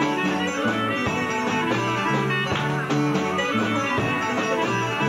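Greek folk dance music for the Kalamatianos, with a melody over a steady beat.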